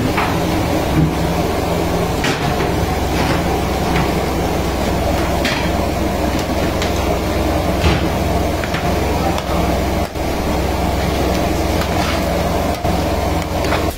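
Kitchen machinery running with a steady low drone, with a few short metallic knocks from pots and utensils being handled.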